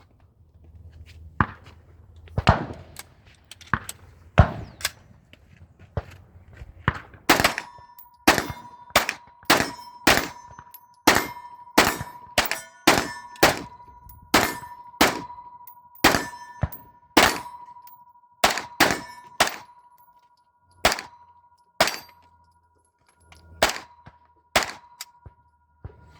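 Gunfire at a shooting range: about thirty sharp shots at an irregular pace, spaced out at first and then coming in close runs, each one echoing away. From about seven seconds in, a steady high ringing tone sounds under the shots.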